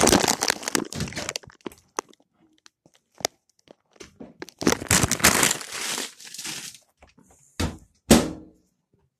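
Plastic bag of Brussels sprouts rustling and crinkling as it is handled, with scattered small clicks. Near the end come two thunks about half a second apart from the oven door.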